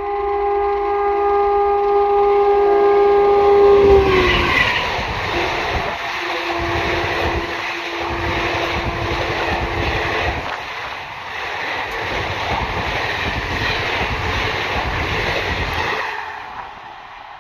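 Indian Railways train sounding a long multi-note horn for about four seconds, then passing close by with a loud rumble and wheel clatter that dies away about sixteen seconds in.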